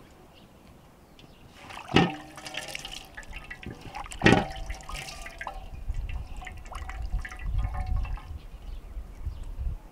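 Soapy water being splashed from a metal basin onto a man's head and face, with two loud splashes about two and four seconds in, then hands scrubbing wet skin and water dripping back into the basin.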